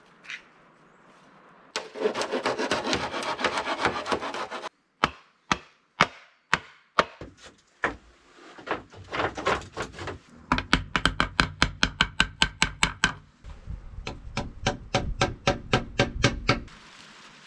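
Wood being worked by hand: runs of fast, rhythmic rasping strokes, like a hand saw cutting, with a spell of single sharp knocks on wood in between.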